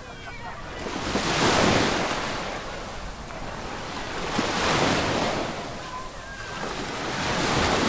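Small sea waves breaking and washing up a sandy beach, the surf swelling and fading about every three seconds.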